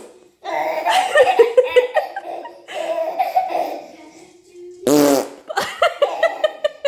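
Fart noises and a baby laughing at them, with a loud burst of fart sound about five seconds in.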